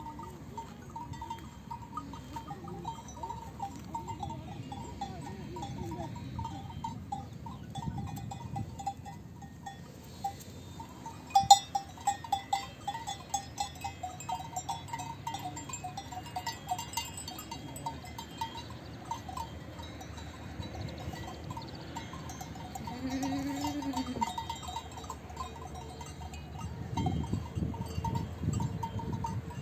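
Bells on grazing livestock, most likely sheep or goats, clinking irregularly as the animals move, busiest about a third of the way in. One short rising-and-falling animal call comes about three-quarters of the way through.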